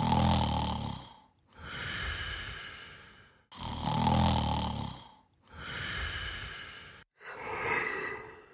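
Cartoon snoring sound effect: a loud, low snore on the in-breath followed by a softer breath out, repeating about every three and a half seconds, with a lighter third breath near the end.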